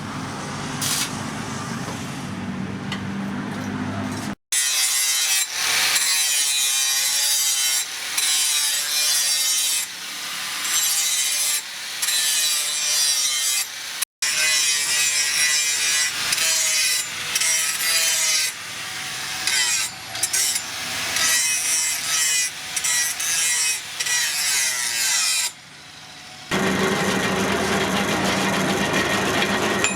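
Abrasive rasping and scraping on the steel blade, in repeated strokes with short breaks, typical of a blade being filed or ground to shape. The sound changes abruptly at cuts about four and fourteen seconds in and again near the end.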